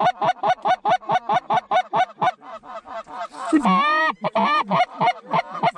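Goose call blown in a rapid, even series of short honks, about five a second, with a few longer drawn-out notes a little past halfway, calling to a flock of geese turning toward the spread.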